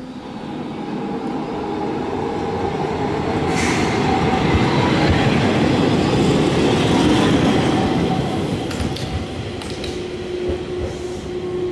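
Toyohashi Railway Mo 800 tram running on its rails, the wheel-on-rail noise swelling to its loudest in the middle and easing off again. There are a few short clicks after the peak and a steady whine near the end.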